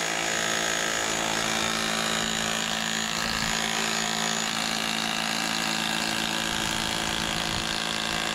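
Electric rotary hammer running continuously with a long bit driven down into the soil, a steady, even machine sound.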